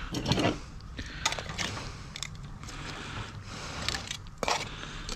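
Metal tongs clacking and scraping against a steel pot as boiled mud crabs are lifted out of the cooking water: a heavier clatter at the start, then a handful of sharp clicks about a second apart, over a steady low rumble.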